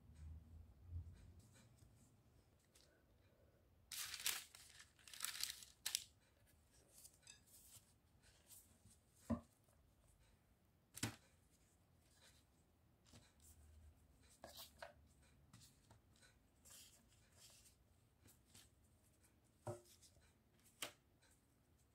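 Faint kitchen handling sounds: gloved hands pulling sliced onion apart and laying the rounds on parchment paper. Crinkling rustles about four to six seconds in, then a few light single taps.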